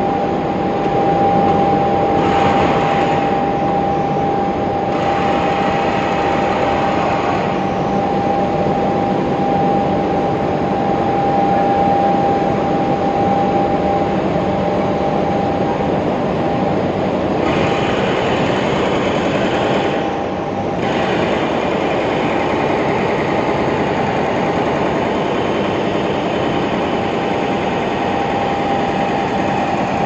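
Gas burners of a 45-tonne aluminium holding furnace firing: a loud, steady rushing noise with a steady hum held over it, growing brighter and hissier for a few seconds twice.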